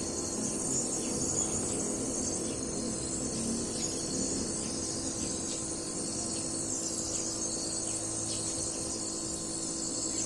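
Nebulizer air compressor running, with a steady motor hum under a continuous high hiss of air and medication mist.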